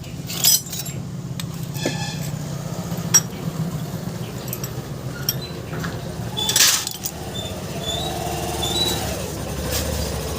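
Metal tools and engine parts clinking during work on a Hero Glamour motorcycle's timing chain. There are a few sharp clicks, one ringing metallic clink about two seconds in and a louder clatter a little past the middle, over a steady low hum.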